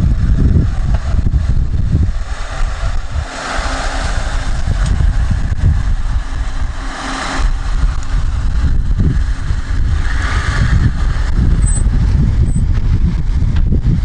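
Five-door Lada 4x4 (Niva 2131) four-cylinder engine running as the SUV drives down a steep sand slope, under a loud, uneven low rumble.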